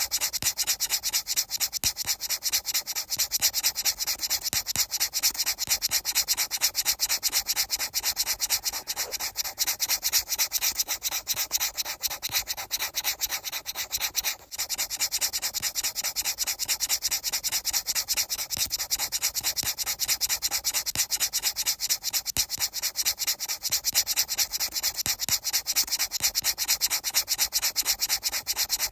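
Steady, rapid rubbing: an even run of many short strokes a second, with a brief break about halfway through.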